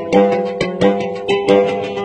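Oud being plucked in a steady run of ringing notes, about three strong plucks a second.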